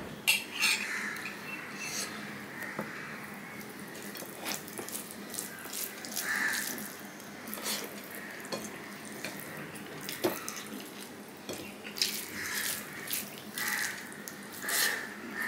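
Fingers squishing and mixing rice with chicken curry gravy on a plate, making irregular wet squelches and clicks, mixed with mouth sounds of eating.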